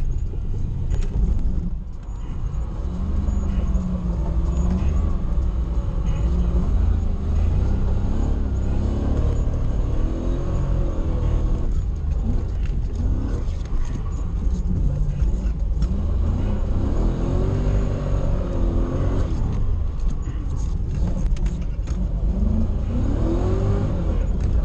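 Toyota 1UZ V8 swapped into a Nissan 240SX, heard from inside the cabin, revving up and dropping back again and again through a drift run, over a heavy rumble.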